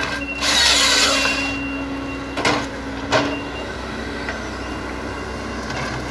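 Hitachi ZX138MF-5G excavator's diesel engine running steadily with a held hydraulic hum as the boom swings and lifts a Kesla 25RH harvester head. A loud rush of noise fills the first second and a half, and two sharp knocks come a little after the middle.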